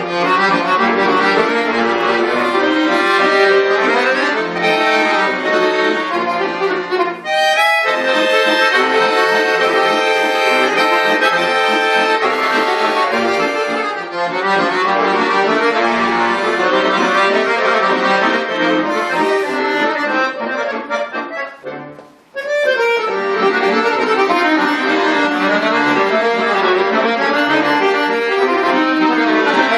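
Bayan (Russian button accordion) playing a lively piece in full chords, with a short pause about two-thirds of the way through before the playing resumes.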